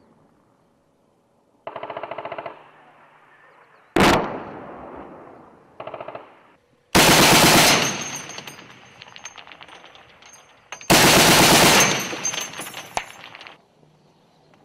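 Machine-gun fire in several short bursts, with a single sharp bang about four seconds in. The two loudest bursts, about seven and eleven seconds in, each last about a second and echo as they die away.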